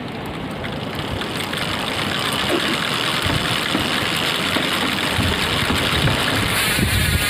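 GUB bicycle hub's freewheel ratchet buzzing steadily as the wheel spins, growing slightly louder.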